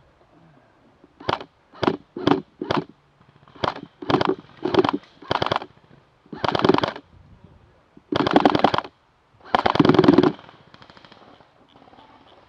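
Airsoft gun firing in rapid bursts: four short bursts, then four more, then three longer bursts of just under a second each.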